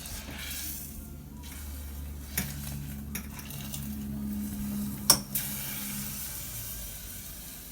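Food deep frying in a pot of hot oil: a steady sizzle, with a few clinks of a metal utensil against the pot, the sharpest about five seconds in.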